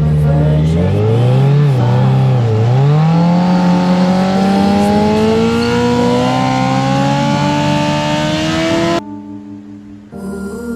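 Kawasaki Z900 inline-four engine revving hard in a burnout, its pitch wavering for a couple of seconds and then climbing steadily as the rear tyre spins. The sound cuts off suddenly near the end, leaving a much quieter sound.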